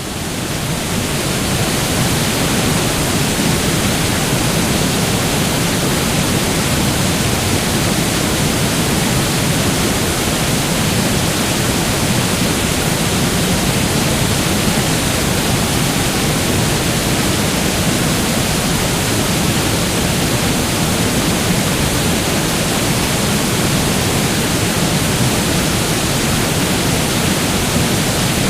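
Waterfall sound effect: a steady, even rush of falling water that fades in over the first second or two and then holds level.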